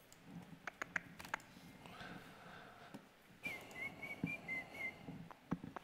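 A few computer mouse clicks, then a person whistling softly: a short run of wavering high notes lasting about a second and a half.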